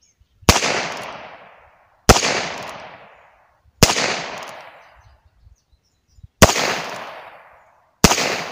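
Heritage Rough Rider .22 LR single-action revolver firing five single shots, about one and a half to two and a half seconds apart. Each shot is a sharp crack that trails off over about a second.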